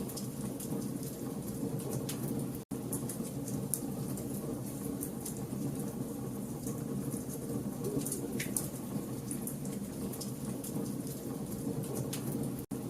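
Campfire crackling: frequent sharp snaps and pops over a steady low rush of burning wood. The sound cuts out for an instant twice, about two and a half seconds in and near the end.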